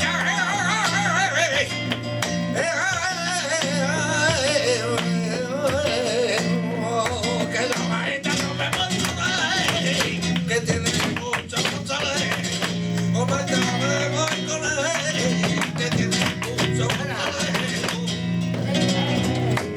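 Flamenco tangos played live: a cante singer's wavering melody over flamenco guitar, with sharp percussive hits running through it.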